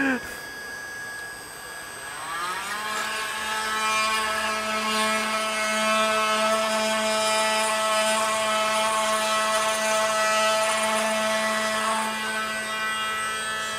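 Cordless multi-tool spinning up about two seconds in, rising in pitch, then running steadily as it is worked against a gouged plastic boat hull to take off the damaged plastic, easing slightly near the end.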